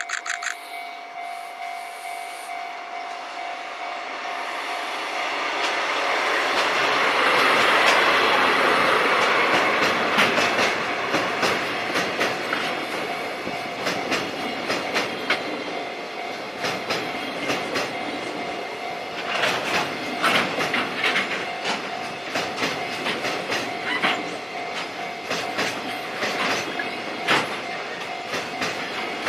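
A DD51 diesel-hydraulic locomotive passes hauling a freight train, loudest about eight seconds in. A long string of freight wagons follows, clattering over the rail joints in a rapid clickety-clack. A level-crossing alarm keeps sounding a steady tone underneath.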